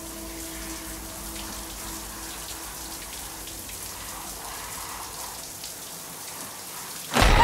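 Shower spray falling steadily, an even hiss like rain. Just before the end a sudden loud sound cuts in.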